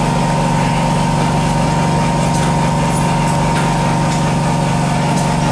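Hot-air rework gun blowing on a phone to soften the adhesive around its screen: a steady motor and fan hum with a thin higher whine over it.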